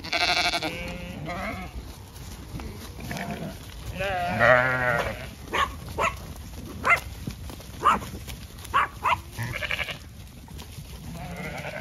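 Zwartbles sheep bleating, several wavering calls, the loudest at the start and about four seconds in. In the middle comes a run of about eight sharp knocks.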